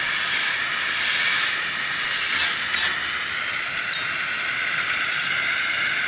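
Steady hiss of spraying water, with a faint click or two partway through.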